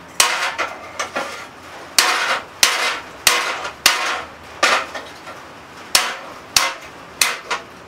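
Blacksmith's hand hammer striking a hot railroad spike on the anvil as it is forged into a tomahawk head: about a dozen blows spaced half a second to a second apart, each a sharp strike with a short ring. He is working off the excess edge of the blade, which breaks away just afterwards.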